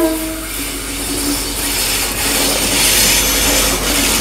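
DL class diesel-electric locomotive passing close by, its engine and wheel noise building to a peak about three seconds in. The last of its horn blast fades at the very start.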